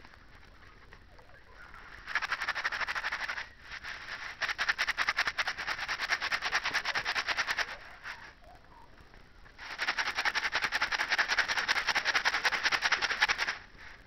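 A sheet of paper being folded and creased by hand close to the microphone: dense crinkling rustle in three long bursts, with short pauses between folds.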